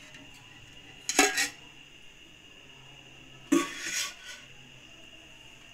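Two metallic clanks of kitchen utensils against a frying pan, about a second in and again at about three and a half seconds, each ringing briefly.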